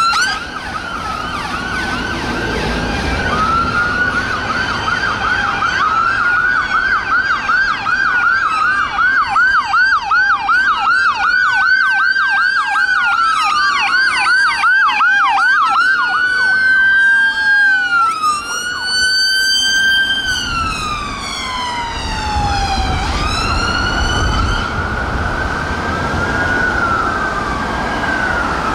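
Several ambulance sirens sounding at once, their rising and falling sweeps overlapping: slow wails, with a stretch of fast yelps in the middle. The ambulance engines rumble as they pass, late on.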